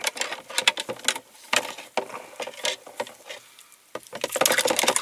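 A hand wire brush scrubbing stripped paint off a diecast metal part: a run of short, scratchy strokes that come thicker and almost continuous near the end.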